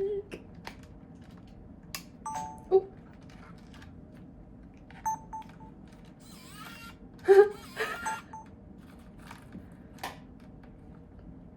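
Sony Handycam camcorder being handled: scattered plastic clicks and a few short electronic beeps as its buttons are pressed, with a soft "oh" about three seconds in.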